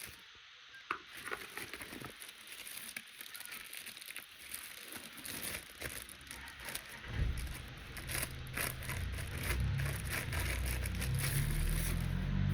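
Hands handling plastic parts and packaging: irregular clicks and rustling, with heavy low bumps of handling noise from about halfway through.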